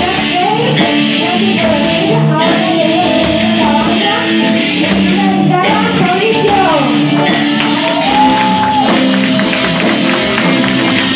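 Amateur rock band playing live: electric guitar, drums, bass guitar and keyboard. A melody line on top slides and bends in pitch, with one note held about eight seconds in.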